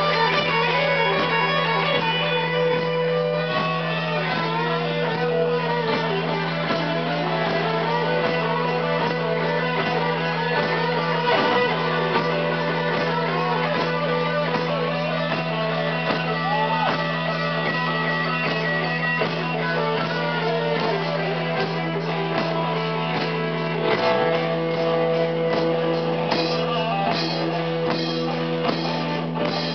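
Live rock band playing: electric guitars with bending notes over a steady low held tone, and a beat of sharp even hits starting near the end.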